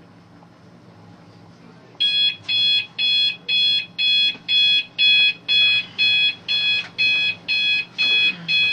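Digital alarm clock going off: a fast, even train of high-pitched electronic beeps, about two a second, starting about two seconds in.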